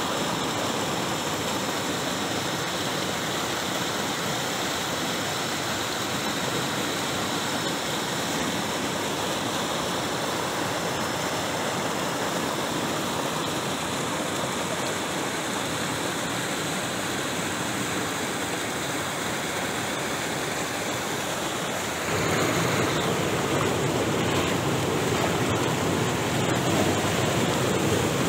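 Swift river water rushing and churning through rapids between boulders, a steady rushing that grows louder and deeper about three quarters of the way through.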